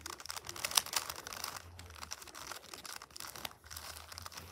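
Plastic 3x3 speed cube being turned quickly through an algorithm: a rapid, irregular run of light clicks and clacks as the layers snap round.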